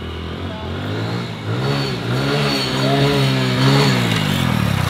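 Hero Splendor motorcycle's small single-cylinder engine revving while it is ridden, its pitch rising and falling several times.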